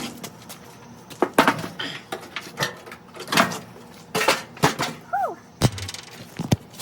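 Clanks, knocks and scrapes of a Whirlpool dryer's sheet-metal cabinet and parts being handled during disassembly: about a dozen sharp, irregular hits. About five seconds in comes a short falling squeak.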